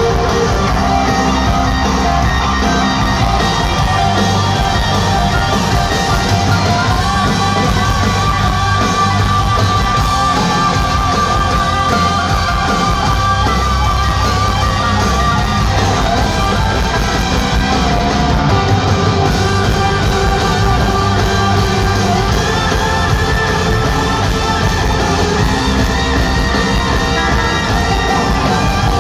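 Live rock band playing loud through an arena's sound system, with amplified guitars and a singer's voice over a heavy bass, echoing in the large hall.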